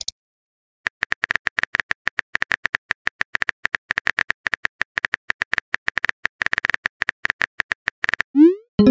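Keyboard-typing sound effect of a texting app: a quick, uneven run of small ticks lasting about seven seconds. Near the end comes a rising swoop and a chime as a message pops up.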